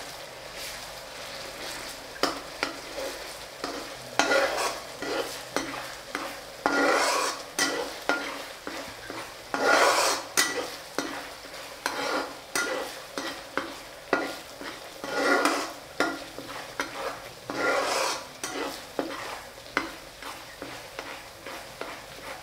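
A metal spatula scraping and stirring around a metal cooking pot while minced aromatics and turmeric fry in oil with a low sizzle. Short scrapes come one after another, with louder sweeps every few seconds.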